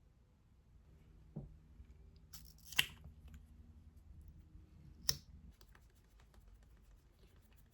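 Quiet handling sounds: a soft knock, a brief scrape and a sharp click, with faint light ticks, over a faint low hum that stops a little past halfway.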